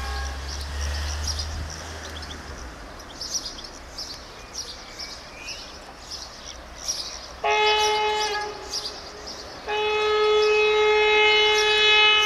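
Diesel locomotive horn sounding twice: a short blast of about a second and a half, then a longer steady blast of a few seconds. Birds chirp in between.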